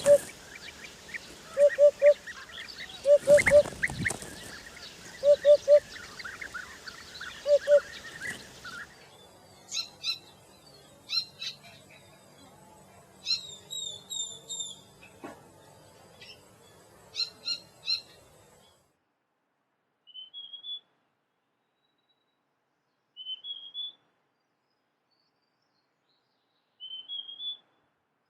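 Birdsong recordings spliced one after another. First comes a low call of three quick notes, repeated every couple of seconds among higher chirping. Then there are clusters of sharp high chirps, and finally three short rising chirps a few seconds apart with dead silence between them.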